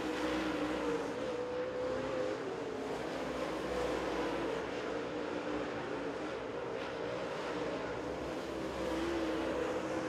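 Dirt super late model race cars' V8 engines at speed around the oval, a steady drone that wavers in pitch as the cars go through the turns.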